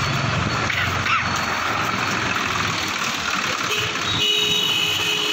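Street traffic with passing motorbikes: a low engine hum fades out in the first half-second, then a steady high tone comes in about four seconds in.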